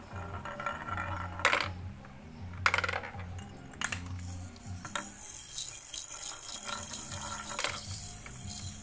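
Background music with a repeating low beat, over a handful of sharp clicks and rattles of toy marbles and balls knocking and rolling.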